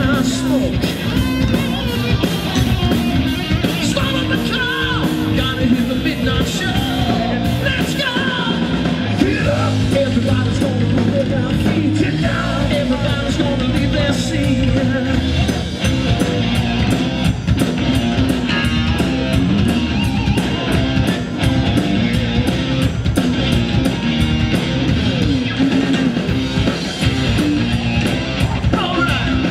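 Live rock band playing: a singer over electric guitar, bass guitar and a drum kit, amplified through the stage PA.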